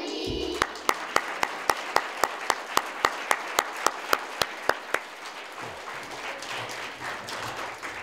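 An audience applauding, with one person's sharp claps close to the microphone standing out at about three a second. The close claps stop about five seconds in, and the rest of the applause thins out toward the end.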